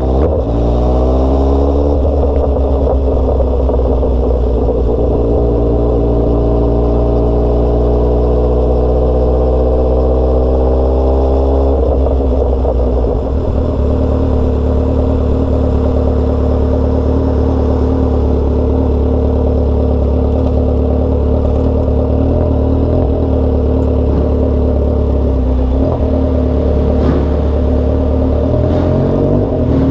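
Motorcycle engine under way, its pitch rising steadily for about ten seconds as the bike accelerates, then holding level while it cruises.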